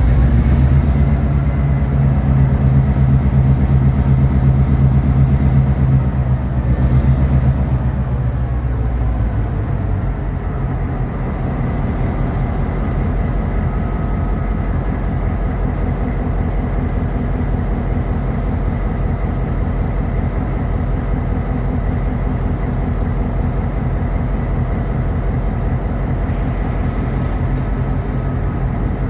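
EMD SD38-2 diesel-electric locomotive's non-turbocharged diesel engine running under load while shoving a loaded train. Its note is loudest for the first several seconds, then drops to a lower, steady level about nine seconds in as the engine ramps down.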